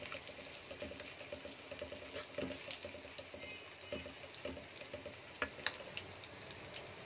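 Ginger-garlic paste sizzling and crackling in hot oil in a metal karahi as it is browned, stirred with a metal ladle that scrapes and taps against the pan a few times.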